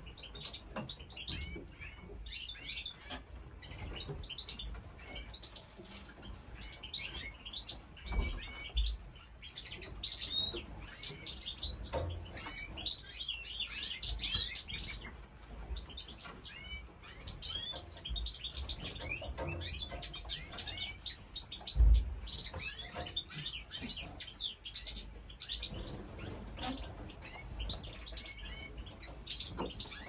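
A flock of small aviary birds chirping and chattering continuously, many short quick calls overlapping, with one low thump about two-thirds of the way through.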